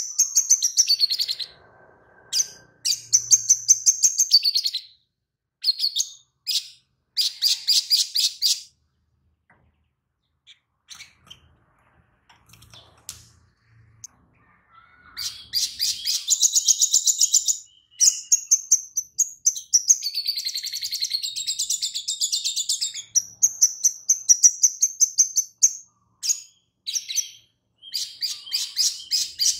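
Male olive-backed sunbird (sogon) singing a fast, high chattering song in bursts of rapidly repeated notes, with phrases learned from a lovebird. Only scattered faint notes come for a few seconds around the middle, then a long unbroken run of song follows.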